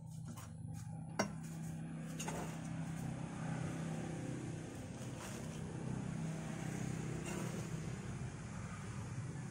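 Steady low hum of an engine running, with one sharp click about a second in.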